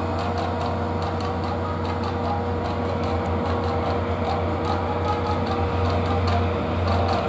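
Diesel locomotive's engine running with a steady low drone as it hauls a departing train away, a thin steady tone underneath fading out about six seconds in.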